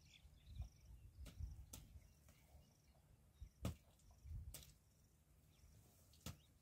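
Near silence: faint outdoor bush ambience with a few faint high chirps, a low rumble of wind on the microphone, and several soft clicks, the clearest about three and a half seconds and six seconds in.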